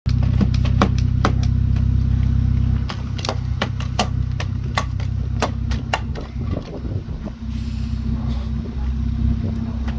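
Excavator engine running steadily, with a quick series of sharp knocks and clacks over the first six seconds. The engine note drops a little about three seconds in.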